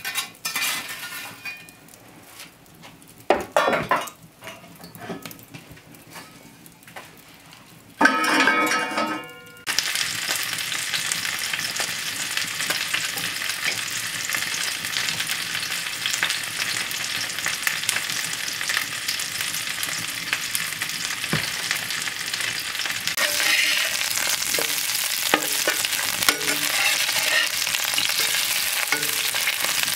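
Metal knocks and clinks from tending the hearth fire, then a loud ringing clank about eight seconds in. After that, sausages sizzle steadily in an iron frying pan over the coals, with a spatula scraping and turning them near the end.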